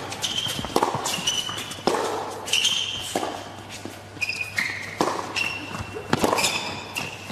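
Tennis ball struck by rackets and bouncing on an indoor hard court, sharp irregular knocks about every half second to second, with players' shoes squeaking briefly on the court surface several times.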